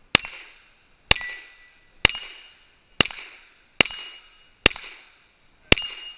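Seven pistol shots at a steady pace of about one a second, each followed by a brief high ringing as the round steel plate targets are hit.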